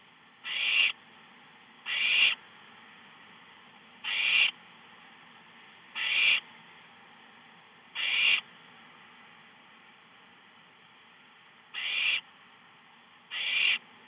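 Barn owl nestling giving a series of harsh, hissing snore calls, the owlets' food-begging call. There are seven rasps, each swelling and then cutting off sharply, about every two seconds with a longer pause near the end.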